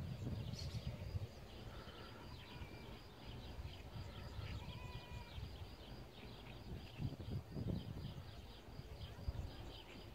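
Birds chirping and calling in short notes, with a few brief whistled tones, over a low, irregular rumbling background noise.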